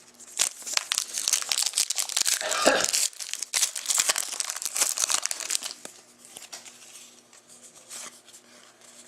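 Trading-card pack wrapper crinkling and tearing as it is handled and opened, a dense crackle for about six seconds that then thins out.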